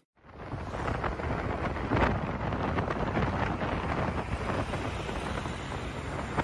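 Steady rumbling outdoor background noise with a crackly texture that cuts in abruptly, the kind heard from wind buffeting a field microphone or from road traffic.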